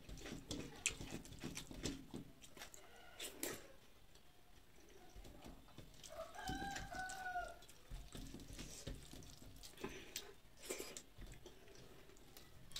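A rooster crowing once, briefly, about six seconds in. Around it come soft eating sounds: fingers mixing rice on a steel plate, and chewing.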